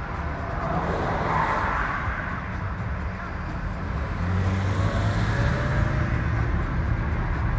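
A car's road and engine noise heard from inside its cabin while driving: a steady low rumble with tyre noise, a little louder in the second half.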